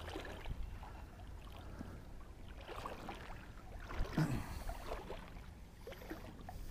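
Shallow creek water sloshing and lapping close to the microphone, the sound of wading, with a couple of sharper, louder sounds about four seconds in.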